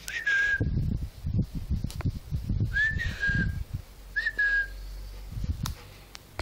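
A person whistling three short notes about a second and a half apart, each rising quickly and then held, to call a dog. Dull low thuds sound underneath.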